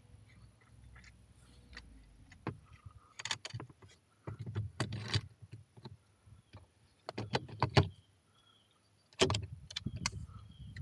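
Hands working along a solar panel's metal frame and its mounting hardware: irregular clicks, taps and rustling in several short bursts.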